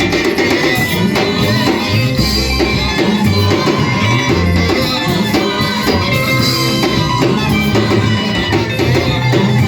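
Live gospel worship band playing upbeat music: a bass guitar line, a drum kit keeping a steady beat, and guitar and other instruments above.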